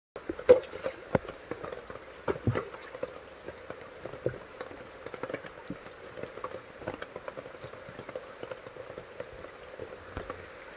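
Steady rain falling onto a wet stone surface and into a shallow puddle: a constant patter with many separate drops plinking. A few louder drops land in the first three seconds.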